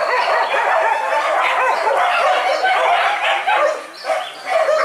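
A pack of hunting dogs barking and yelping all at once, many voices overlapping without a pause.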